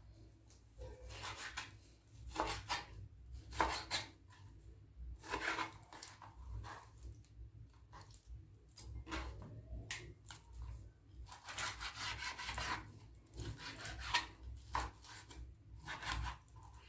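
A knife slicing raw liver into small pieces on a cutting board, in irregular strokes with the blade now and then tapping the board.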